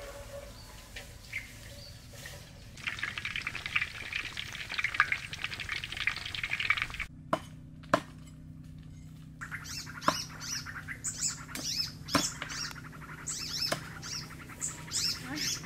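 Rustling of cut grass as cattle feed, then a cleaver chopping crispy fried pork belly on a thick wooden chopping block: single sharp chops every second or two, with birds chirping in the orchard behind.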